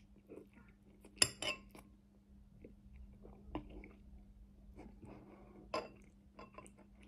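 Metal fork clinking against a ceramic bowl a few times, sharpest about a second in, between quiet slurping and chewing of noodles. A faint steady hum runs underneath.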